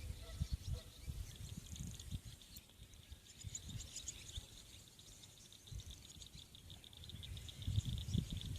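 Outdoor nature ambience: small birds chirping and a dense high chirring that thickens after a few seconds, over an uneven low rumble that swells near the end.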